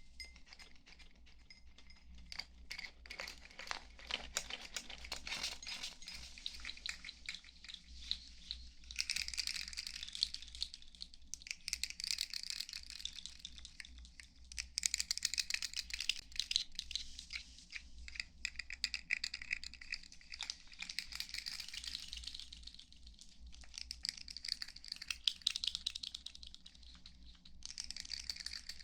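Close-miked ASMR trigger sounds: rapid crackly tapping and scratching in several swells, with a few pauses between them, over a faint steady low hum.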